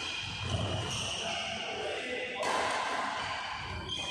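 Badminton rally in a large sports hall: racket strikes on the shuttlecock and shoes squeaking on the court mat, with voices behind.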